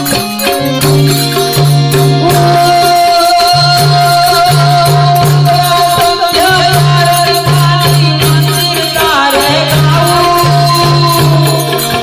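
Gujarati devotional aarti music: harmonium chords, a singing voice and a steady jingling hand-percussion rhythm over a repeating low beat.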